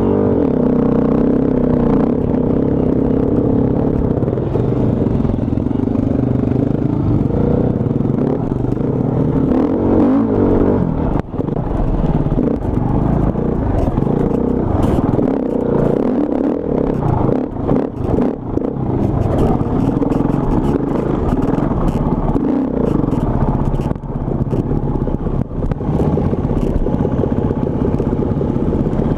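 Enduro dirt bike's engine running under throttle, picked up close by a camera on the handlebars, its pitch rising and falling as the rider works the throttle. Rattles and knocks from the bike over rough ground come through, more of them in the second half.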